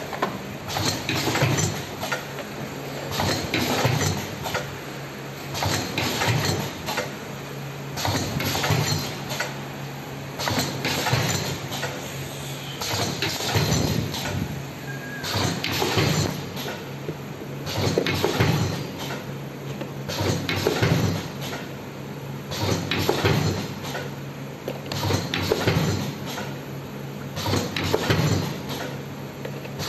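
Automatic cartoning machine running, packing glass cough syrup bottles into cartons: a steady motor hum with a surge of mechanical clatter and clicks about every two and a half seconds, one surge per packing cycle.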